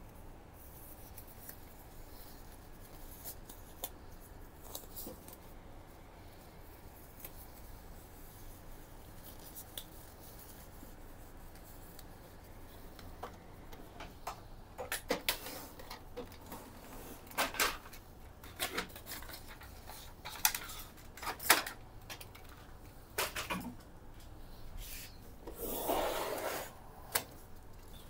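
Plastic handling noises from an HP LaserJet P3015 laser printer being opened up. After a quiet stretch, a series of sharp clicks and knocks starts about halfway in, and a longer scraping slide comes near the end as the paper tray is pulled out and the printer is tipped up.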